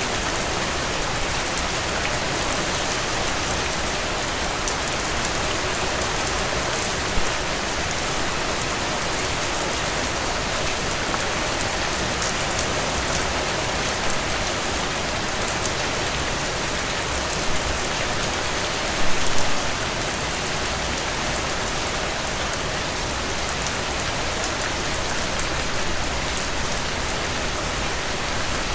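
Steady rainfall: a dense, even hiss of rain on surfaces with many fine, sharp drop ticks. A few louder drips stand out, one about seven seconds in and a short cluster a little after halfway.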